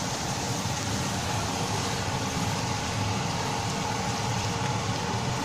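Steady rumbling hiss with a faint constant whine: the running background of a kitchen with a gas burner lit under a pan of cooking sauce.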